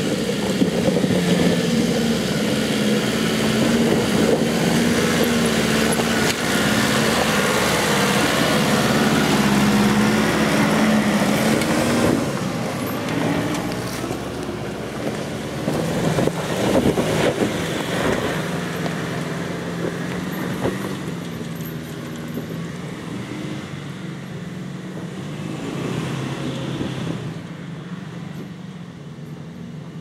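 Nissan GU Patrol 4WD's engine working under load as it climbs a steep rocky track, with knocks and crunches from the tyres on rock and loose stones. The engine note holds steady for about twelve seconds, then fades as the vehicle pulls away up the slope.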